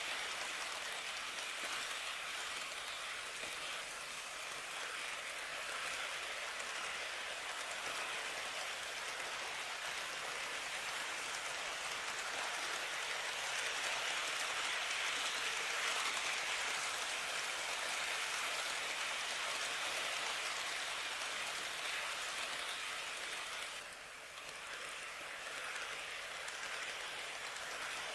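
N-gauge model trains running on track: a steady, hissy rolling rattle of wheels and motors. It grows a little louder in the middle and dips briefly near the end.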